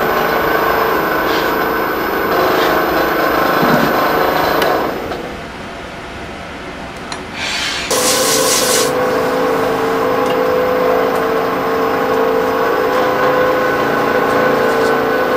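Small wood lathe running with a steady motor whine while a hand-held turning tool scrapes the spinning wooden mallet. About eight seconds in, the whine changes and a hissing rub starts as the turner's hands work against the turning wood.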